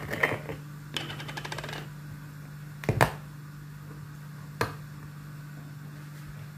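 Plastic screw cap on a cardboard carton of cream being twisted open: scratchy rubbing, then a quick run of ratcheting clicks about a second in. Two sharp clicks follow, the louder about three seconds in. A steady low hum runs underneath.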